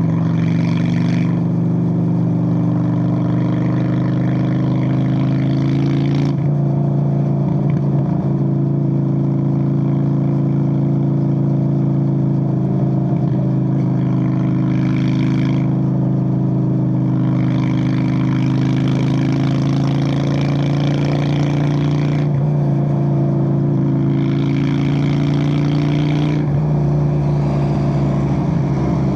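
Straight-piped 1997 Honda Steed VLX 600 V-twin motorcycle engine running steadily at fairly constant revs, its pitch dipping and rising slightly a few times.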